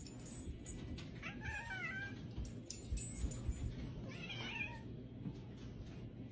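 A cat meowing twice, two short wavering cries about three seconds apart, over a low steady hum.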